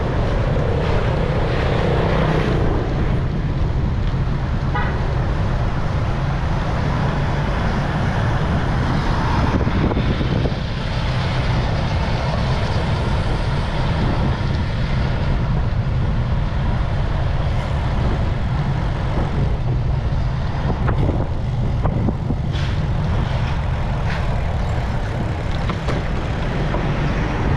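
Steady wind rush and road noise on an action camera's microphone while riding a bicycle in traffic. A motor vehicle passes in the first few seconds, its engine pitch falling as it goes by.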